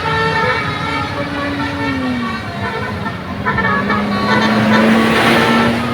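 Telolet basuri multi-tone musical horn playing a melody of stepped notes, with a short break in the middle, over a running engine whose pitch drops about two seconds in and then slowly rises. A burst of hiss comes near the end.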